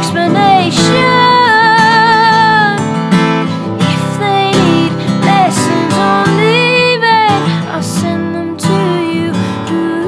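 A woman singing over a strummed acoustic guitar, holding a long wavering note about a second in and another about seven seconds in.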